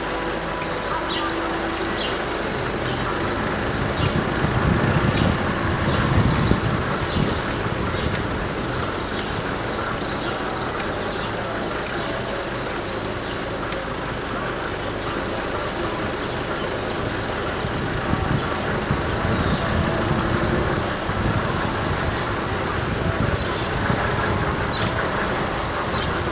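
Street traffic noise: a steady road hum with a motor vehicle engine running, swelling about four to seven seconds in and again around twenty seconds in, with short high ticks over the first ten seconds.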